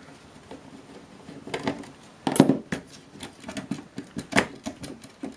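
Irregular metallic clicks, clinks and knocks as a plug-in electronics module is worked loose and pulled from its slot in a metal chassis, with the loudest knock about halfway through.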